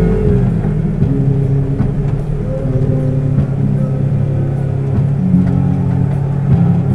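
Side-by-side UTV engine running under throttle, its pitch holding and stepping up and down as it drives over sand, with a few light knocks from the bumps.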